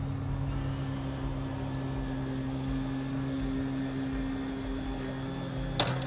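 Electric push lawn mower running steadily with a low, even motor hum. One sharp click about six seconds in.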